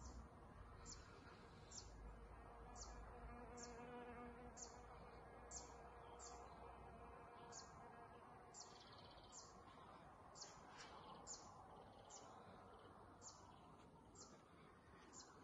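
Very faint buzzing of a flying insect, a bee or fly, around fuchsia flowers. Behind it a short high chirp repeats about once a second.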